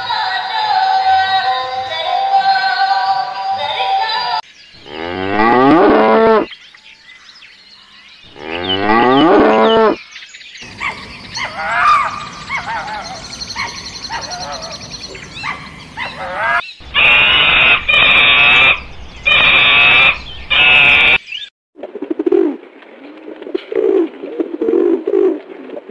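A string of unrelated clips. It opens with electronic music and synthetic singing from a light-up spinning doll toy. After that come several separate animal calls, whose pitch repeatedly rises and falls, and four loud even bursts. Near the end, pigeons coo in low repeated pulses.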